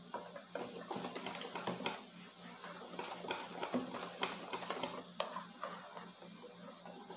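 Wire whisk beating a thin oat-flour batter in a stainless steel bowl, with quick irregular clicks and scrapes of the wires against the metal.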